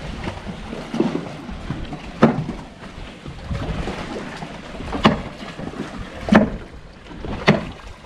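Four sharp knocks, irregularly spaced, over a steady background of wind and water: a hammer driving wooden chocks under a yacht's hull as it sits on a boatyard haul-out platform.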